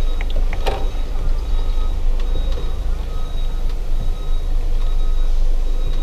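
Mercedes-Benz Sprinter 315 CDI's four-cylinder diesel engine running, heard from inside the cab as a steady low rumble, while a reversing warning beep repeats about once a second. A single sharp click comes under a second in.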